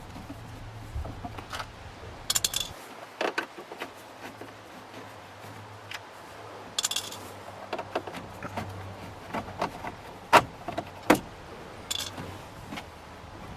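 Scattered clicks and a few short metallic jingles as small screws are backed out of a dashboard panel with a screwdriver and handled, with sharper clicks a little after ten seconds in.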